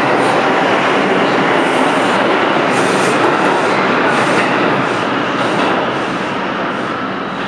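New York City Subway R142 train departing a station, its cars rumbling past with a repeated clatter of wheels on the rails. It grows fainter over the last couple of seconds as it pulls away into the tunnel.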